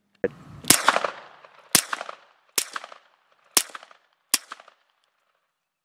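A Walther PPQ 9mm pistol fitted with an Osprey-9 suppressor fires five shots at roughly one a second, the gaps getting slightly shorter. It is firing supersonic 115-grain ammunition, not subsonic loads. Just before the first shot there is a single sharp clack of the slide being worked.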